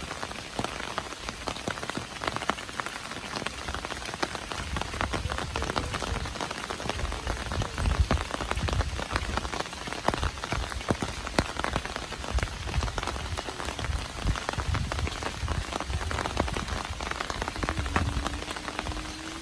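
Steady rain with many individual drops pattering on a surface, and intermittent low rumbling bursts underneath.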